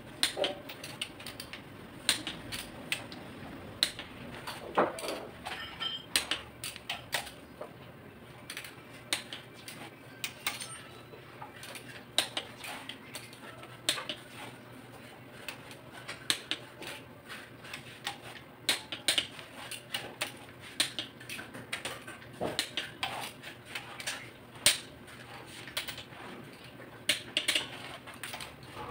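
Ratchet wrench clicking and sockets clinking on the cylinder head bolts of a Mitsubishi 4D34 diesel engine: irregular sharp metallic clicks, some in quick runs, as the head bolts are run down.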